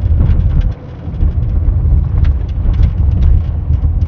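Car rolling slowly over a rough, potholed road, with a heavy uneven rumble from the tyres and suspension and many small clicks and crunches throughout. The rumble briefly eases about three quarters of a second in.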